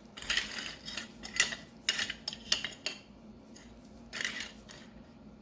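Small metal boat tart molds clinking and clattering as they are handled and set out: an irregular run of light metallic knocks, with another clatter about four seconds in.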